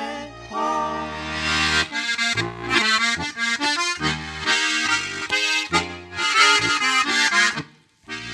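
Accordion playing the closing instrumental bars of an Alpine folk tune in rhythmic chordal phrases over bass notes. It breaks off shortly before the end.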